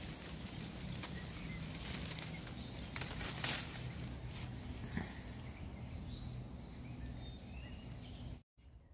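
Smilax vine leaves and stems rustling as a hand grips and pulls at them, with a sharper rustle about three and a half seconds in and a few faint bird chirps. The sound drops out suddenly near the end.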